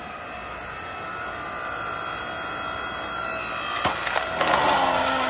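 WEN Lumberjack 6.5-ton electric log splitter running, its motor and hydraulic pump humming steadily and growing louder as the ram pushes a fresh green log against the wedge. About four seconds in the log gives way with a sharp crack, then crackles and splinters as it splits.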